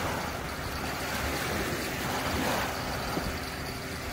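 Small waves breaking and washing up on a sandy shore in gentle swells, with wind rumbling on the microphone.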